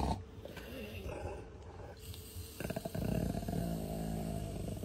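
Dog growling. After a quieter stretch, a throaty growl sets in about two and a half seconds in and runs on while the dog is petted.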